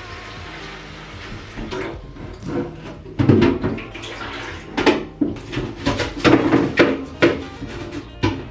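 Irregular knocks, rubbing and clatter of things being handled while a fridge is cleaned out. The knocks come thick from about three seconds in.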